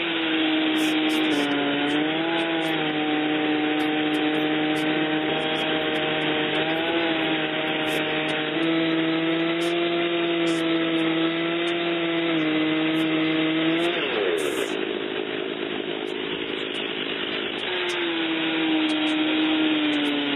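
Two-stroke chainsaw running at steady high speed under load, ripping lengthwise through a cedar log in an Alaskan chainsaw mill, its pitch dipping slightly now and then. About two-thirds through the steady note breaks up for a few seconds, then settles again.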